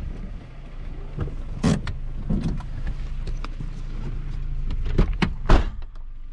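Suzuki Grand Vitara running at low revs over rough off-road ground, with several sharp knocks and thuds from the body and suspension; the loudest comes about five and a half seconds in.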